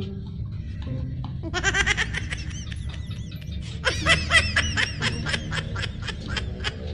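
Rapid, high-pitched laughter in quick repeated pulses, one run about a second and a half in and a longer one from about four seconds in, over a steady low hum.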